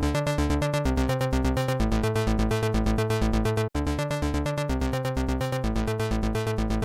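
Electronic background music with a quick, even pulse of synthesizer notes over a steady bass. It cuts out for a split second a little past halfway.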